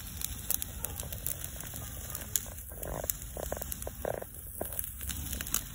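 Frogs croaking outdoors at night, with a short run of croaks about three to four seconds in. Underneath are a steady low rumble and scattered sharp crackles from chicken drumsticks grilling over glowing charcoal.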